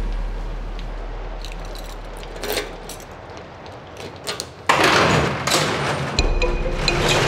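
A low drone fades away, a few small metallic clicks of keys being worked at a wall-mounted key box come through, then music starts suddenly about two-thirds of the way in and stays loud.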